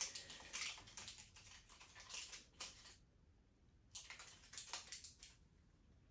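Faint crinkly crackling of a thin red plastic piece as a cat bites and crunches it. It comes in clustered bursts through the first three seconds, then again around four to five seconds, then stops.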